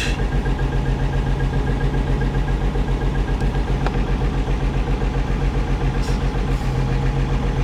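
Freshly rebuilt 1963 Rambler American straight-six idling steadily on its first run, warmed up to about 195°F operating temperature.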